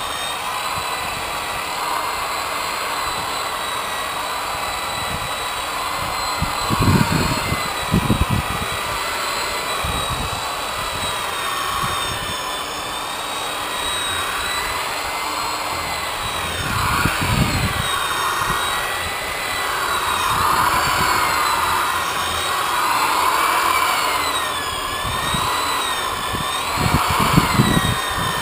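Corded electric rotary polisher with a foam pad running against a boat's freshly painted hull, buffing the paint. Its motor whine wavers in pitch as the pad is pressed and moved over the surface, with a few short low thumps along the way.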